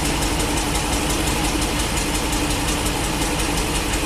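A Ford 6.8-litre V10 in an E450 bus, heard from inside the cabin, running roughly with a fast, regular pulsing. Cylinder 5 has been cut out for a power balance test while cylinders 8 and 9 are already misfiring, so the engine is running worse with number 5 not contributing.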